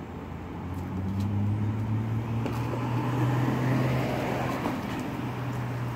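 Motor vehicle engine running, a steady low hum that grows louder about a second in and then holds.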